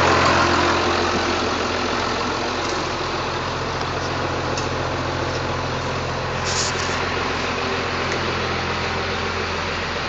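Blue Bird party bus engine idling steadily, heard from inside the passenger cabin.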